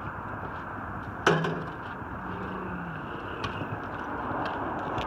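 Steady outdoor background noise, with one sharp knock just over a second in.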